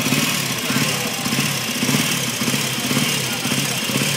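Vintage motorcycle engine idling at low revs, with a slow, regular pulsing beat.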